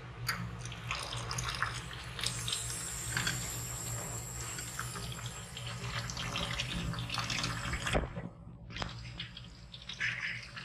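Tap water running and splashing into a metal pot of boiled burdock root in a stainless-steel sink, cooling the burdock under running water. There is a short lull about eight seconds in.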